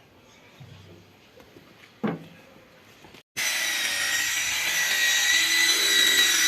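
Electric animal shearing clipper starting abruptly about three seconds in and running with a steady high whine.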